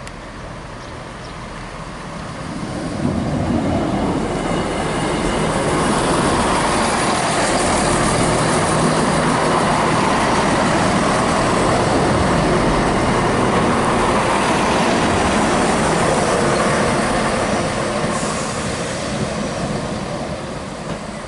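Class 170 Turbostar diesel multiple unit passing close by: engine and wheel noise build over the first few seconds, hold steady and loud for about fifteen seconds as the carriages go past, then fade near the end.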